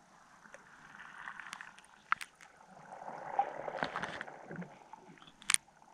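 Water swishing and gurgling around a camera held just below the surface, swelling twice, with a few sharp clicks, the loudest near the end.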